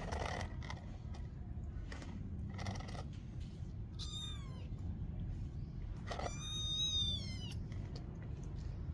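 Cat meowing twice: a short call falling in pitch about four seconds in, then a longer, louder meow about six seconds in. A few brief rustling noises come before, over a steady low hum.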